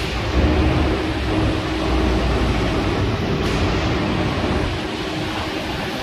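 Wind buffeting the microphone with a steady low rumble, over a continuous machine hum from construction equipment.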